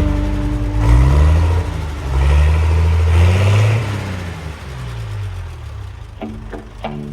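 A vehicle engine accelerating, its pitch rising and dropping back several times as it shifts up through the gears. Plucked guitar music starts near the end.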